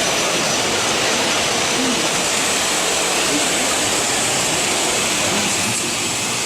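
4-axis CNC machining center running, a loud steady hiss of machining with a faint high whine. The level dips slightly near the end.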